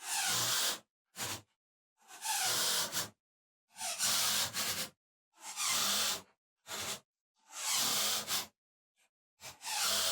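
Drill/driver driving screws into wood in short runs, about eight bursts of under a second to about a second each, with pauses between: screws going in to fasten swivel casters.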